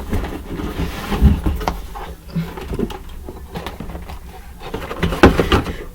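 Cardboard boxes being handled and unpacked: rustling with scattered light knocks and clicks, the loudest near the end.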